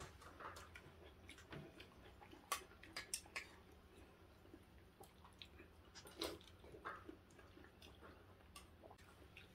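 Faint eating sounds at a table: chewing, with scattered light clicks of a spoon and chopsticks against ceramic bowls, a quick run of sharp clicks about three seconds in and another louder clink a little after six seconds.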